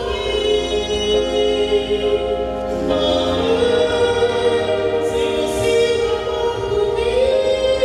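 Slow song with singing, its voices holding long notes over the accompaniment.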